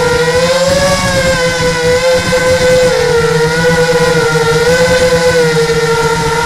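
Small motor-driven propellers of a model aircraft carrying the camera, running with a steady high whine whose pitch wavers slightly up and down as the throttle shifts.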